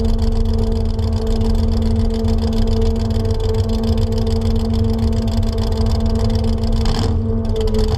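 Chevrolet S-10 pickup's engine running at a steady speed with a heavy low rumble as the truck rolls slowly, heard from a camera mounted low on the truck's side. A brief rush of noise comes about seven seconds in.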